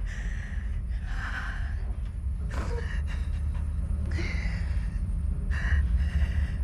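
A woman's ragged gasping breaths, about five in a row, over a steady low rumbling drone from the film's soundtrack.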